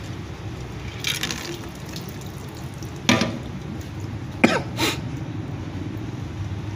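Water trickling from a water-filled aluminium drink can holed by airsoft BBs as it is handled, then the can set down on a plastic basket lid with a knock about three seconds in, followed by two sharp knocks about a second and a half later. A steady low hum runs underneath.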